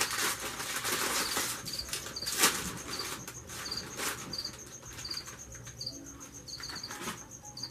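Crinkling of a Doritos chip bag being opened and handled, dense and loudest in the first couple of seconds, then thinning out. Crickets chirp in short bursts about twice a second in the background.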